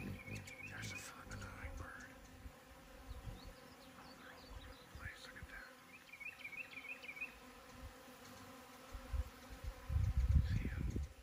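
Bees buzzing in a faint steady hum, with small birds giving short high chirps near the start and again about six seconds in. A louder low rumble comes in near the end.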